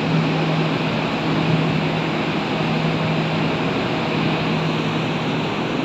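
A ship's machinery running underway: a steady drone with a constant low hum and a broad rushing noise, unchanging throughout.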